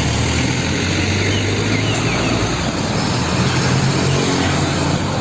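Diesel engine of a heavy UD Trucks dump truck running as the truck drives past, with a steady low hum and road noise.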